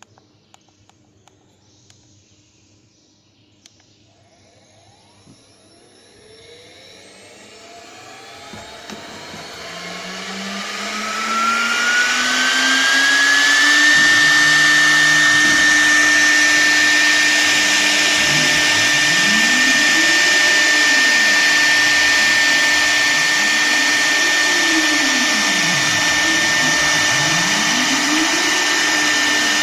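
CNC router spindle motor spinning up: a whine that rises steadily in pitch over about nine seconds, then holds at full speed with a loud rushing hiss. In the second half, a lower motor tone swoops up and down three times.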